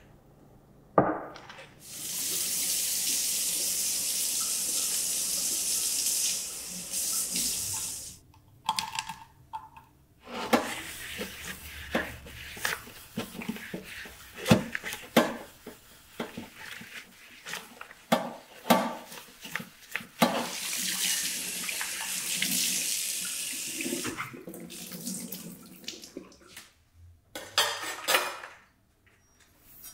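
Kitchen tap running steadily into a stainless steel sink in two spells. Between them, a stainless steel bowl is scrubbed with a cloth and baking soda paste, with many short clinks and knocks of metal, and there is a brief clatter of dishes near the end.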